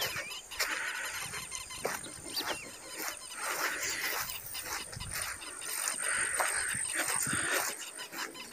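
Footsteps crunching on a dirt trail at a walking pace, with a few short bird chirps.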